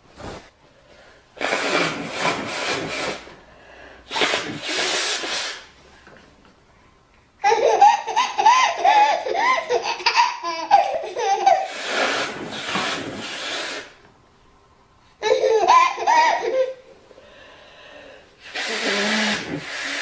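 A baby's belly laughs, breaking out in two long fits between four or so short, loud nose blows by an adult that startle him each time.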